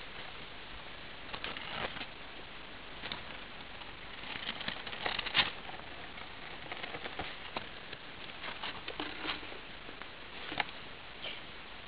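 Gerbils scrabbling and scratching close to the microphone: irregular clusters of light clicks and scrapes over a steady hiss, the loudest flurry about five seconds in.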